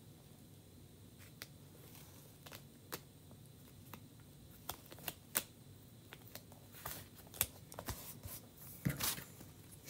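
Thin plastic adhesive craft transfer being handled and laid down by fingers: faint crinkling and scattered small clicks and ticks, sparse at first and busier in the second half, with a louder rustle near the end.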